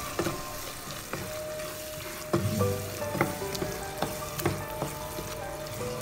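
Onion and tomato masala sizzling in a nonstick pan while a wooden spatula stirs and scrapes it, with repeated light knocks of the spatula against the pan, the loudest about two and a half seconds in.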